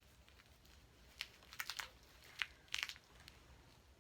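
Packaging being handled, crinkling in a few short, faint crackles.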